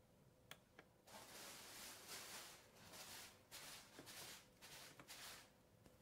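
Faint scratchy strokes of a small screwdriver turning out the bottom-cover screws of a Machenike MC15N laptop, with two light clicks near the start.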